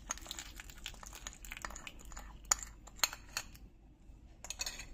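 Salad dressing being poured from a small bowl over chopped vegetables in a glass mixing bowl: a soft, crackly spatter with scattered sharp clinks of dishware. The loudest clinks are single strikes in the second half and a quick cluster near the end.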